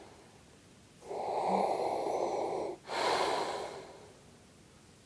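A person snoring: a long, rasping, noisy breath starting about a second in, followed straight away by a shorter breath that fades out.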